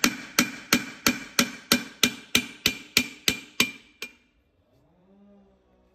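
Hammer blows on a Massey Ferguson 135 brake drum and hub, struck in a steady run of about three a second, each ringing like metal, stopping about four seconds in. The blows are meant to knock free a part that is holding tight.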